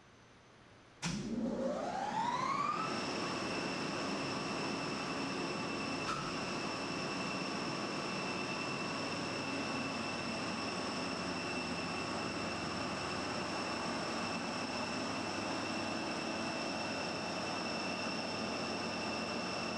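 Horlick 50SC 50 kW motor generator set (a 60 Hz motor driving a 50 Hz generator through a V-belt) starting abruptly about a second in, with a rising whine as it spins up over about two seconds. It then runs steadily with a high whine over the rush of cooling air from its internal fans.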